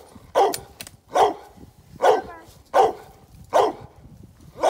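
A cur dog barking steadily at a tree, about one bark every 0.8 seconds, six in all: tree barks, the hound baying a raccoon it has treed in a dead snag.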